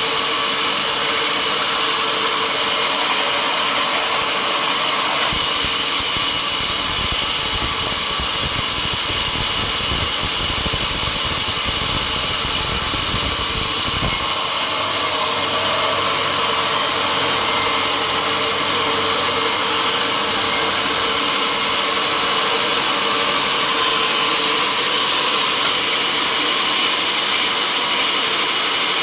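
Sawmill machinery running steadily: a loud, even mechanical noise with a steady whine. A deeper rumble joins about five seconds in and drops away around halfway through.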